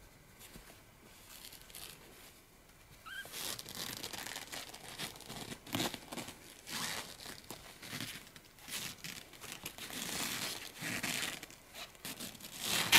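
Synthetic-fabric rustling and crinkling of a padded pet bed's quilted lining as a young kitten scrambles and climbs about in it, in repeated bursts from about three seconds in. There is one brief faint high mew just before the rustling starts.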